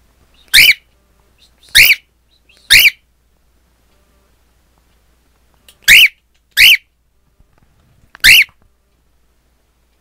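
Cockatiel calling at its reflection in a mirror: six short, loud, sharp calls, each rising then falling in pitch, three in the first three seconds and three more from about six seconds in.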